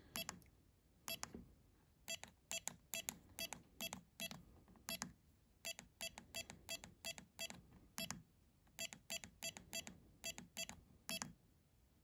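Electronic keypad of a WE.LOCK smart door knob beeping once for each button press: around thirty short beeps at an uneven, quick pace as a new passcode is entered into its menu.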